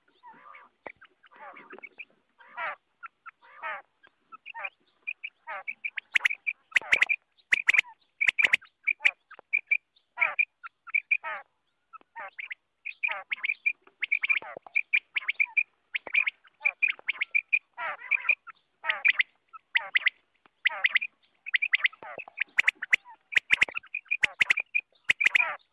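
Common quail calling over and over: short, sharp notes in a fast, almost unbroken run. They grow louder about six seconds in, and sharp clicks cut through then and again near the end.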